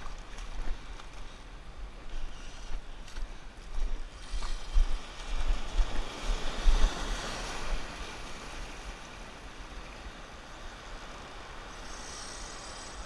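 Wind buffeting the microphone in gusts over the wash of ocean surf across a rocky reef flat. A wave surges in, swelling about four seconds in and easing off after about eight seconds into a steadier wash.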